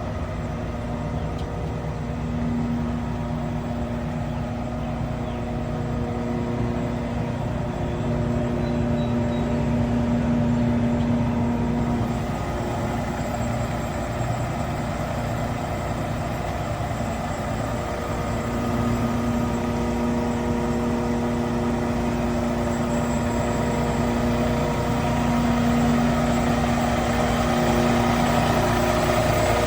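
Cummins ISX12 diesel engine of a Kenworth T880 mixer truck running at a steady idle, a low rumble with a steady whine over it.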